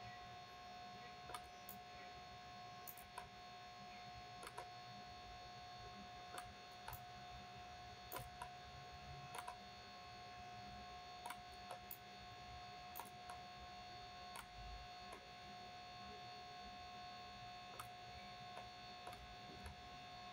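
Faint, steady electrical hum with several constant high whining tones, broken by scattered light clicks about once a second.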